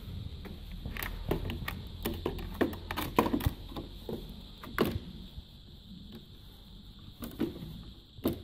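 Scattered clicks and knocks of hands and a hand-held camera moving around the opened metal chassis of an LCD TV, with low handling rumble and a faint steady high tone beneath. The clicks are busiest in the first half and come again near the end.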